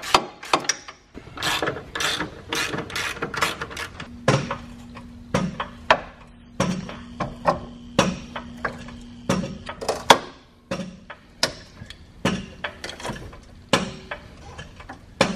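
A ratchet wrench clicking on the engine mount bolts, then a jack pumped in steady strokes with a clunk about every second, lifting the engine from under the transmission.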